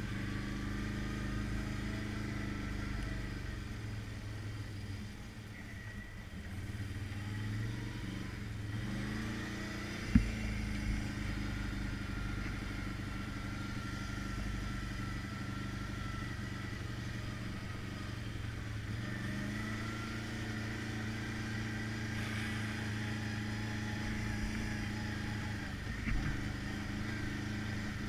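Can-Am ATV engine running steadily while riding a dirt trail, its pitch climbing twice as the throttle opens, about nine and nineteen seconds in. A single sharp knock is heard about ten seconds in.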